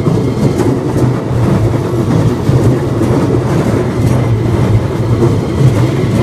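Keikyu Line electric train running past on the rails, a steady loud rumble.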